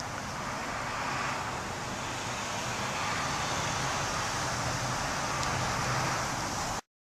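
Steady rushing noise with a faint low hum, which cuts off abruptly near the end.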